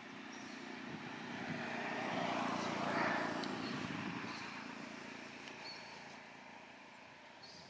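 A motor vehicle passing by: its engine and road noise swell to a peak about three seconds in, then fade away.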